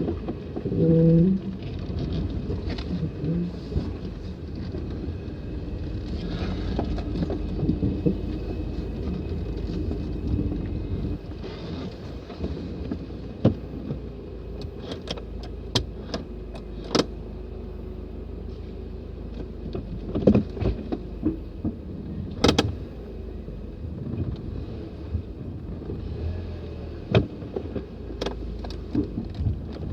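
Mercedes-Benz 190E on the move, heard from inside the cabin: a steady low engine and road rumble with scattered sharp knocks and clunks, more of them in the second half.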